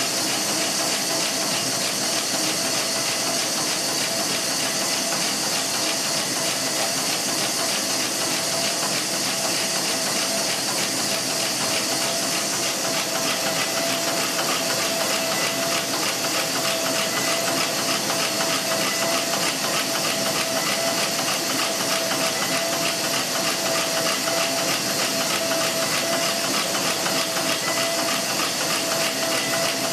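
High-speed band saw of a paper napkin cutting machine running continuously: a steady hissing whir with a constant whine, unbroken.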